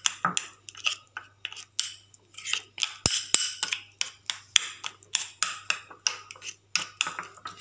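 A spoon stirring a thick paste of ground corn, starch and yogurt in a small bowl, scraping and clicking irregularly against the bowl's sides several times a second.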